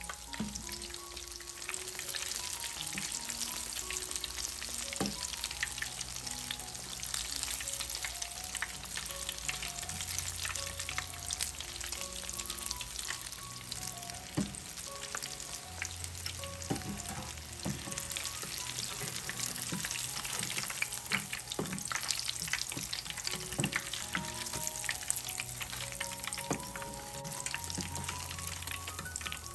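Breaded broccoli cheese balls deep-frying in hot oil: a steady, dense crackling sizzle of bubbling oil, with scattered sharp clicks.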